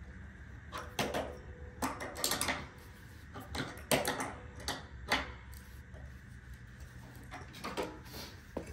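Hand wrench tightening a bolt on a homemade skateboard grind rail: irregular bursts of short metallic clicks and scrapes, with pauses between.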